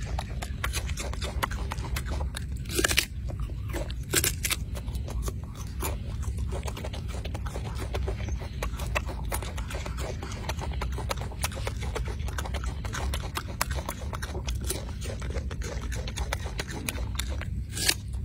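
Golden snub-nosed monkey biting and chewing an apple: a steady stream of small crunching clicks, with a few louder bites about three and four seconds in and again near the end, over a low steady rumble.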